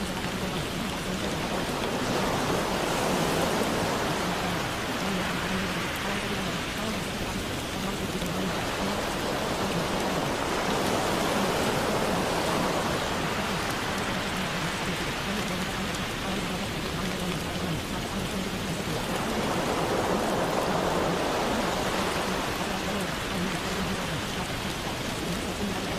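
Recorded rain, an even hiss that swells and eases every several seconds. It is the masking track of a subliminal, with spoken affirmations layered faintly beneath it.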